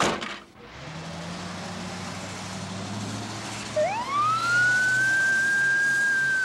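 A door slams at the start, then an ambulance engine runs steadily, and about four seconds in its siren winds up, rising quickly in pitch and holding one long high wail.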